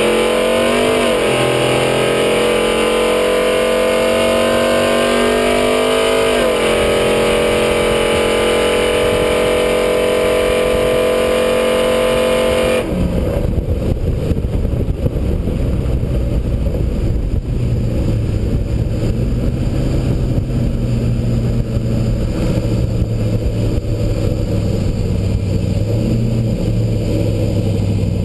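Chevrolet Silverado's 5.3-litre V8, with long-tube headers and dual exhaust, at wide-open throttle on a drag run, its pitch climbing through two upshifts. About thirteen seconds in the throttle closes and it drops abruptly to a low exhaust rumble under a rushing noise as the truck coasts.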